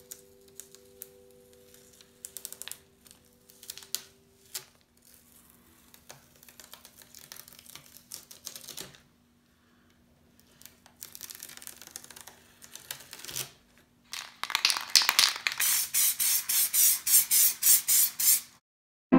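Masking tape being peeled off paper: scattered sticky crackles and clicks, then, about two-thirds of the way in, a louder run of fast rippling crackles, about four a second, as a long strip tears away from the sheet.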